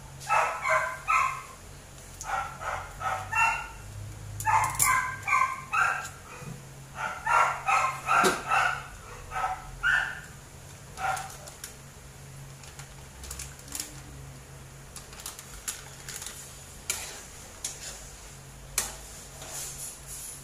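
A small dog barks and yips repeatedly in quick bursts of short, high calls for about the first ten seconds, then falls quiet. Later come a few sharp clicks of a utensil against a metal pan.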